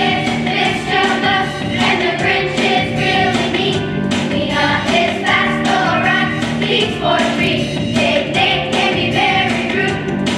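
A choir of fourth-grade children singing a song about reading.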